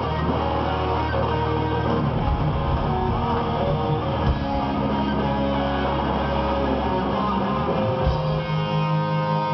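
Live rock band playing loudly, with electric guitar to the fore over bass and drums, recorded from among the concert audience.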